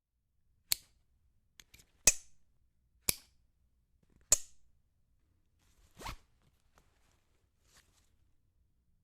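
Buckles clicking shut and snapping, a string of sharp separate clicks about a second apart, then near six seconds a short rasp of a strap being drawn through a buckle.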